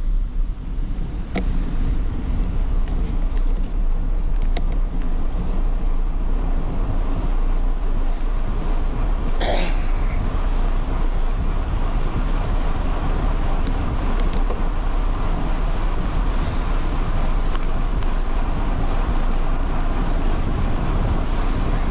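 Steady, loud wind noise with a deep rumble on the microphone of a handlebar-mounted GoPro HERO11 Black while cycling. A few sharp clicks come in the first few seconds, and a short squeak comes about nine and a half seconds in.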